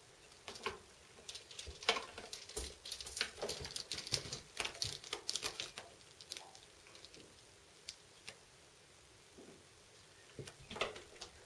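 A Maine Coon kitten clawing and biting a sisal ball in a sisal cat-tree bed: irregular scratchy rasps and clicks, thick over the first six seconds, then scattered, with a short flurry near the end.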